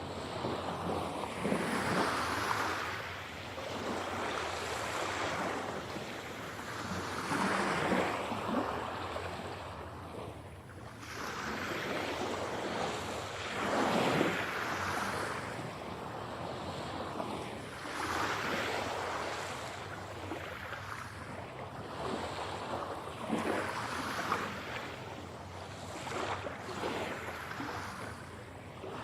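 Ocean waves breaking and washing up a shore, one swell after another about every five or six seconds, each building up and then falling away.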